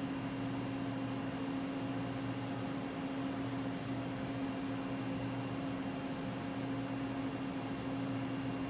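Steady machine hum over a hiss, with a lower hum that drops out and comes back every couple of seconds.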